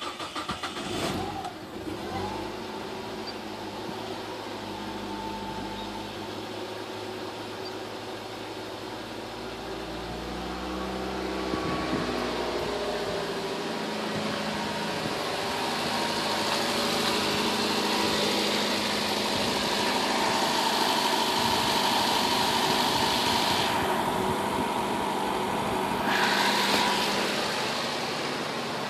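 Nissan Versa engine cranking and catching on a cold start, then running with a steady drone whose pitch shifts now and then. This is the cold-start problem the owner is recording, cause unknown to him.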